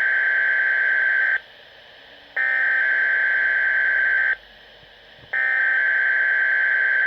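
Three bursts of the SAME digital alert header (Specific Area Message Encoding) on Weather Radio Canada, encoding a Required Weekly Test: harsh, buzzy data tones, each burst about two seconds long with about a second's gap between them.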